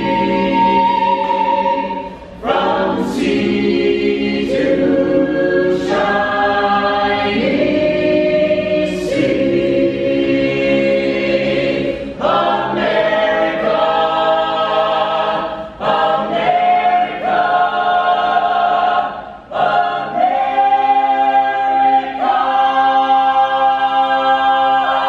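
Mixed a cappella vocal ensemble of men and women singing in close harmony without accompaniment, moving through held chords with brief pauses for breath, and ending on a long sustained chord.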